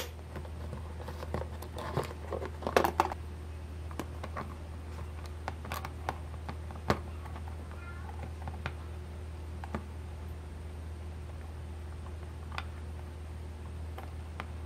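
Scattered light clicks and taps of a small 3D-printed RC car front axle and its plastic steering gears being handled and turned, over a steady low hum. A louder cluster of sounds comes about two to three seconds in.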